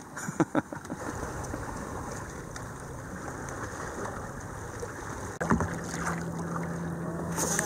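Water splashing and rushing along the hull of a sea kayak as it is paddled, with a few sharp knocks just under a second in. A steady low hum comes in about two-thirds of the way through.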